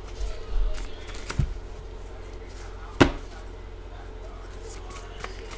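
Tarot cards being handled on a table: a few light clicks and low thumps, then one sharp knock about three seconds in as the deck is handled.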